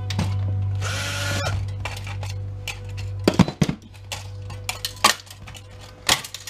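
Cordless drill spinning briefly, about a second in, to back a screw out of the monitor's circuit-board chassis. This is followed by a run of sharp knocks and rattles from the metal chassis and boards being handled.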